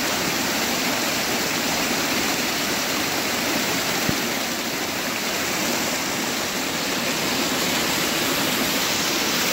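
Small forest creek rushing down a rocky cascade: a steady, even rush of water.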